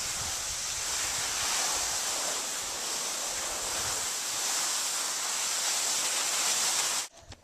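Steady rushing hiss of skis sliding over granular spring snow, mixed with wind on the microphone; it cuts off suddenly near the end.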